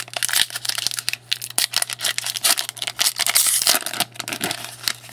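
Foil trading-card pack wrapper crinkling and tearing as a pack is opened by hand, with cards rustling, in irregular dense crackles, over a steady low hum.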